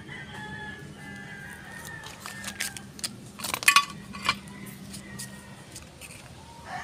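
A rooster crowing in the background, with a handful of sharp clicks about three to four seconds in.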